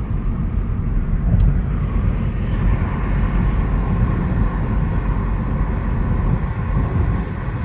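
Steady low rumble from the driver's-side rear wheel of a Hyundai i30 (PD) with over 300,000 km, with a faint high steady whine over it: the strange noise whose cause the owner does not know.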